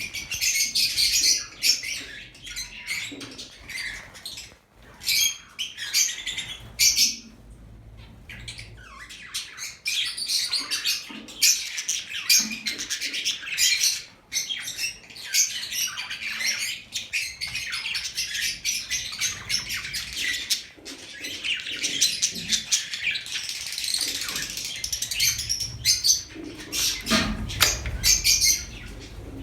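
A group of caged lovebirds chattering: dense, rapid, high-pitched chirps and squawks overlapping almost without a break, with a couple of short lulls.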